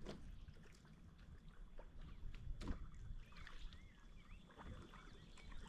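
Faint sounds of a kayak on the water: paddle and hull handling noise with a sharp knock about halfway through. Small birds chirp with short warbling calls in the second half.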